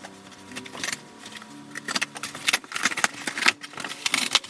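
Packing being pulled out of a cardboard shipping box to uncover an argon gas cylinder: rustling and scraping with a string of sharp clicks and knocks.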